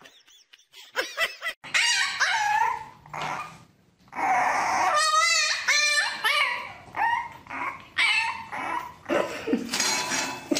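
Puppies whining and yipping in high, wavering cries, broken by a short pause about a third of the way in.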